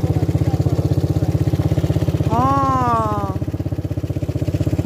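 250cc Lida ATV engine running steadily with a fast, even pulse. About two and a half seconds in, a voice calls out briefly with a falling pitch over the engine.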